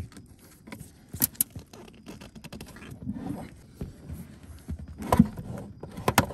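Car battery being lifted by hand out of its compartment under the passenger seat floor: its plastic case scrapes and knocks against the compartment edges, with two sharp clicks about a second in and louder knocks near the end.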